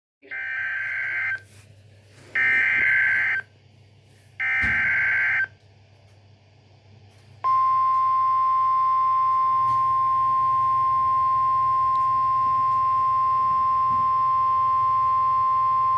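Emergency Alert System SAME header: three bursts of harsh data tones, each about a second long with about a second between them. About two seconds later comes a single steady attention tone lasting about nine seconds. Together they signal that a severe thunderstorm warning is about to be read.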